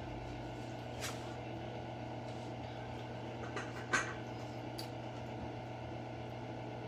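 A few light clicks and knocks of kitchen utensils, the sharpest about four seconds in, over a steady low hum.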